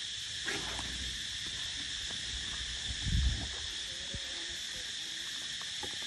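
Steady high-pitched insect chorus, with a brief low thud about three seconds in.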